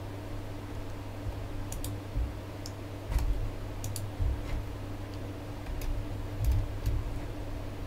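Irregular light clicks of typing on a computer keyboard, about ten keystrokes in scattered groups, over a steady low electrical hum.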